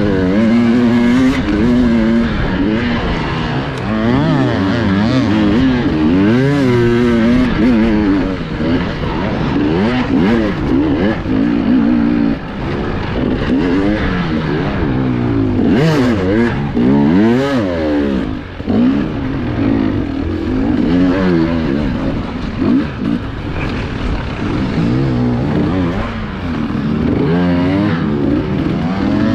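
Enduro motorcycle engine carried on the bike, revving up and down over and over as the throttle is worked, its pitch rising and falling every second or two.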